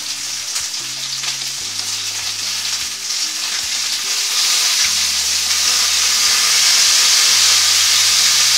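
Chicken thigh fillets sizzling in hot oil in a frying pan as they are glazed with a soy-sauce-and-sugar sauce. The sizzle grows louder about halfway through.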